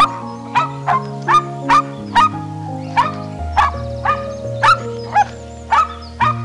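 A dog barking repeatedly in short barks, about two a second, over background music with held notes.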